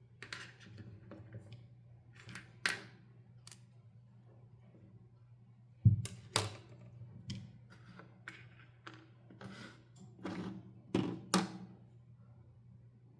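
Hands handling doll toys and their plastic packaging: scattered clicks, taps and short rustles, with a sharp knock about six seconds in, over a low steady hum.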